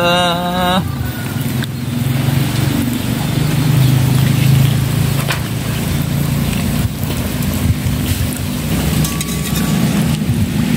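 Gemblong dough balls sizzling in hot oil in an iron wok over a low flame, over a steady low rumble. A few sharp clicks are heard.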